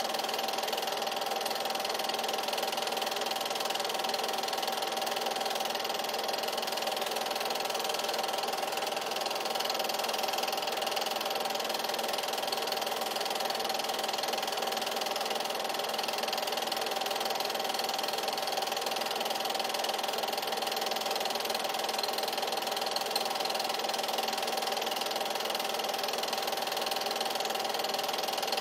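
8mm film projector running, a steady mechanical sound with a constant hum and no change in pace.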